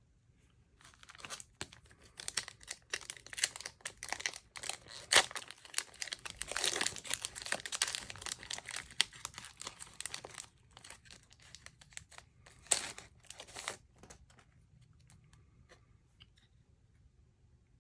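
Shiny foil wrapper of a Panini Mosaic basketball card pack being torn open and crinkled by hand. The crinkling starts about a second in, is loudest in the middle, and dies away at around fourteen seconds, leaving only a few faint handling sounds.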